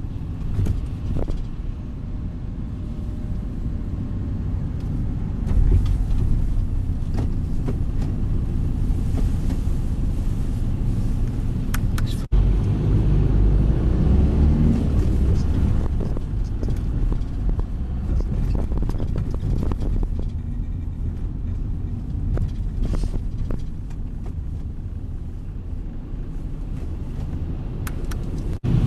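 Steady low engine and road rumble from inside a moving bus in slow city traffic. The sound cuts out briefly about twelve seconds in and again near the end.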